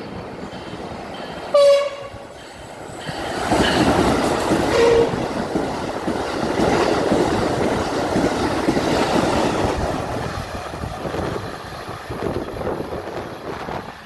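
Train horn sounding one short, loud blast about a second and a half in. Then a train passes with a loud, rising rumble of wheels on rail that eases off near the end, and a second brief tone about five seconds in.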